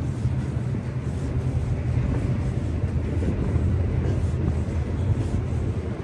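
Steady low rumble of street traffic, a vehicle engine running close by.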